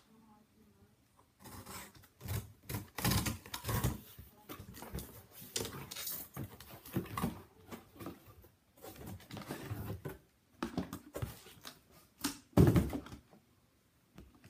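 Cardboard shipping box being slit open and unpacked: irregular scraping, tearing and rustling of cardboard and packing tape. A louder thump comes near the end, as the shoebox inside is pulled out.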